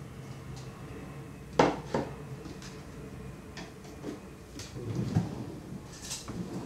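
Two sharp clicks close together about a second and a half in, then scattered faint taps and knocks: small objects, such as product containers and tools, being handled and set down.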